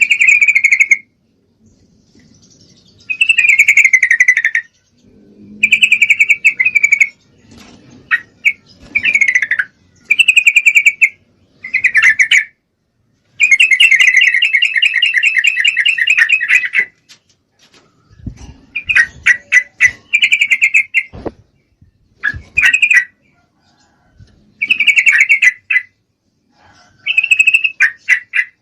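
Yellow-vented bulbul (trucukan) calling in repeated loud, chattering phrases of about a second each, with one longer run of about three seconds in the middle. This is a female's call to a male, given when she is in breeding condition.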